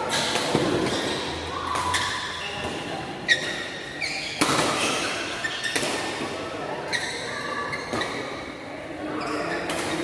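Doubles badminton play: sharp hits of rackets on the shuttlecock and quick footwork on the court mat, echoing in a large hall.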